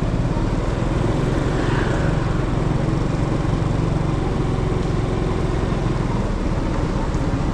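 Steady vehicle engine and road noise from a vehicle being driven, running at an even pace without revving or stops.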